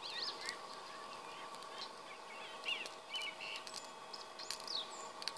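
Birds chirping in short calls over the steady whir of a Florabest tabletop charcoal grill's battery-powered fan, run at its highest setting, with scattered sharp clicks.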